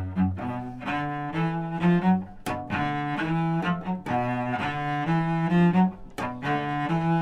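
A violin and cello duo playing. The cello bows a line of low notes that change about every half second, and the violin plays over it.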